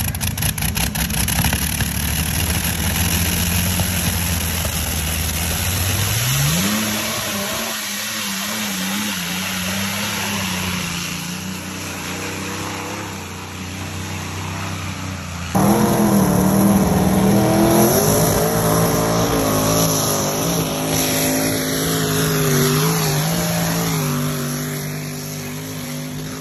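Pulling-vehicle engines at a truck and tractor pull. First an engine runs steadily and revs up sharply about six seconds in. After a sudden cut about halfway, a louder engine, a pulling semi truck's, runs hard under load down the track, its pitch wavering.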